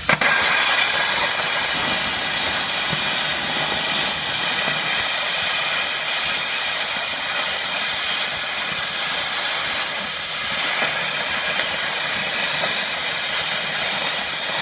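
An 80 A plasma cutter running on single-phase power, cutting through thick steel of about 15 mm with the torch held off the plate. It gives a loud, steady hiss from the plasma arc and air jet.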